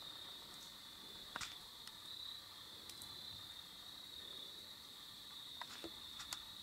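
Crickets chirping in a faint, steady high-pitched chorus. A few sharp snaps cut in, one about a second and a half in and several near the end.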